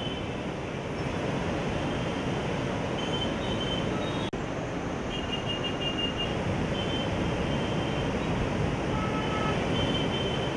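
Krishna River floodwater rushing through the open gates of the Prakasam Barrage: a steady, dense rush of water during a high flood release. The sound drops out for an instant about four seconds in.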